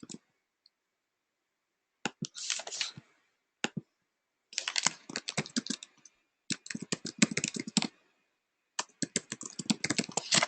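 Computer keyboard typing: several runs of quick keystrokes with short pauses between them, starting about two seconds in, as figures for a division are keyed in.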